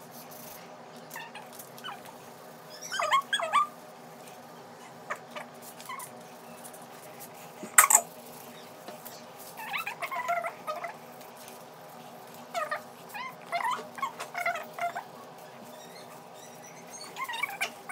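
A pet animal giving short, high whining calls in several small clusters, with one sharp knock about eight seconds in, over a steady low room hum.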